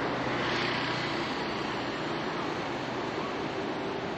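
Steady rushing noise with a faint low hum under it.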